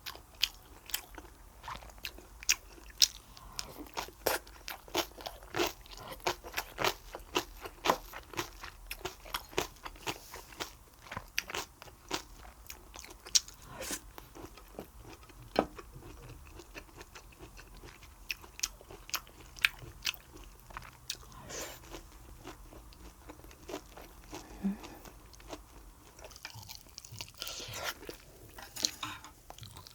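Close-miked eating: a person chewing and biting through a meal of spicy braised pork ribs and side dishes, with many sharp crunches and mouth clicks coming irregularly several times a second.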